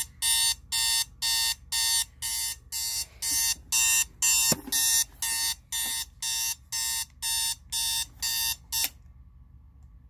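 Sharp digital alarm clock beeping its alarm, short electronic beeps at about two a second, cut off when the alarm is switched off about nine seconds in.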